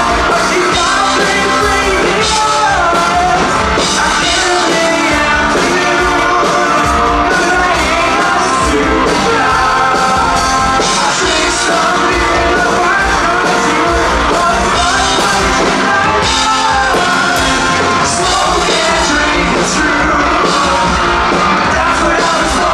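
Live rock band playing loudly with a lead singer's vocals throughout, at times sung in a yelling style.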